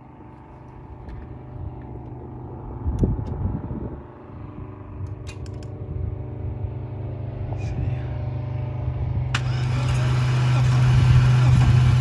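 Mercedes 420SEL's 4.2-litre M116 V8 being cranked by its starter for a compression test, with the spark plugs out and the fuel pump disabled, so it turns over evenly without firing. The sound grows steadily louder, with a sudden rise in hiss about nine seconds in.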